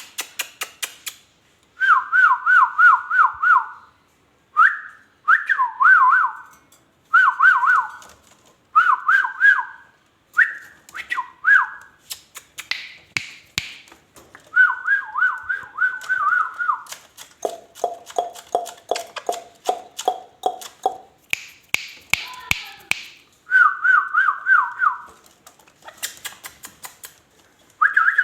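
Ringneck parrot whistling runs of quick, warbling up-and-down notes in groups of about five, over and over, its mimicked 'mittu' call. Twice it gives a harsher screech, and past the middle a lower, pulsing call runs for a few seconds.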